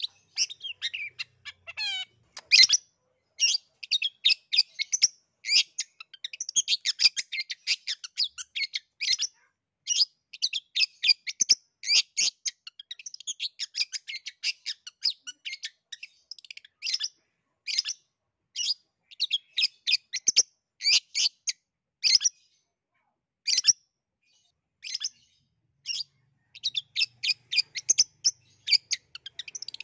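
Long-tailed shrike (cendet) singing energetically: long runs of rapid, high chattering notes, broken by a few short pauses in the second half.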